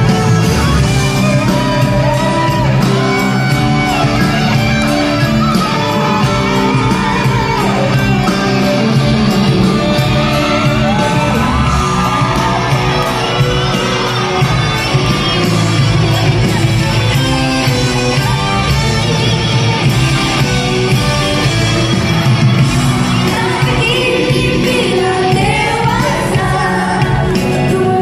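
Live band music with singing, over shouts and cheers from a concert audience.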